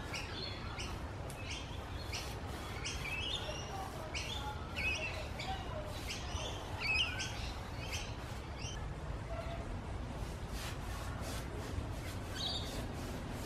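Birds chirping in quick runs of short calls, through most of the first two-thirds and once more near the end, over a steady low background rumble.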